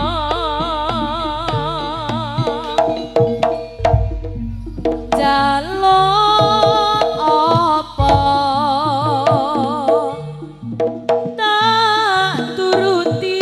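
Live East Javanese jaranan ensemble music: a sustained, wavering melody line over quick hand-drum strokes and a deep low drone or gong that drops out and returns several times.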